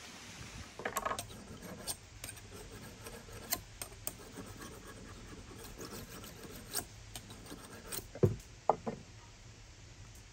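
Steel kitchen knife being sharpened on the unglazed foot ring of an upturned ceramic bowl: short, irregular rasping scrapes, with two louder knocks near the end.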